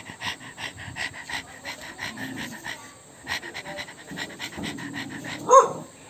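A dog panting quickly, about three breaths a second, with one short, loud bark near the end.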